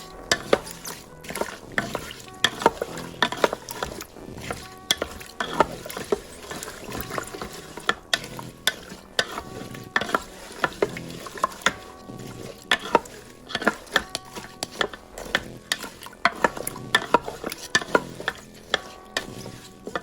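Vegetables, including frozen green beans and baby carrots, being stirred in an Instant Pot's inner pot: repeated irregular clacking and scraping of the utensil and hard pieces against the pot.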